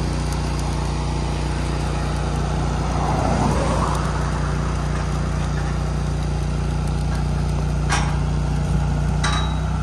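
Small engine idling steadily with a constant low hum. Two sharp metallic clanks come near the end.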